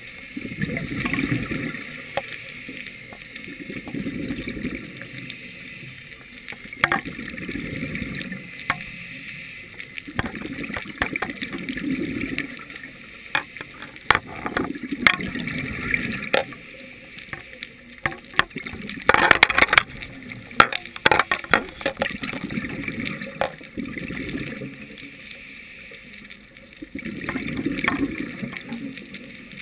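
Scuba diver's breathing through a regulator heard underwater, with repeated swells of exhaled bubbles gurgling and rising every few seconds. Scattered sharp clicks, and a louder burst of bubbles and clicks a little after two-thirds of the way through.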